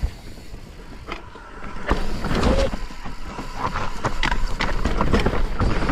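Mountain bike riding over a rough dirt trail, picked up by a chest-mounted camera: rumbling tyre noise with many short rattles and knocks, getting louder about two seconds in.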